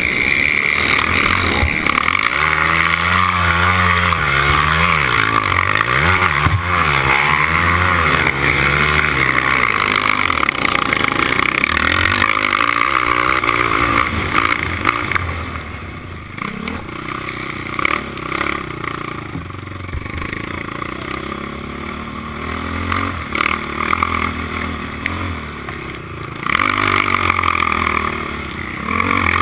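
A four-stroke racing quad's engine heard from on board, revving hard and rising and falling in pitch as it is pushed around the track. About halfway through the throttle eases and it runs quieter for around ten seconds, then pulls hard again near the end.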